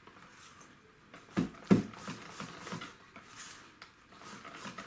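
A whisk stirring thick pancake batter in a bowl, with two short knocks about one and a half seconds in and faint repeated strokes after them.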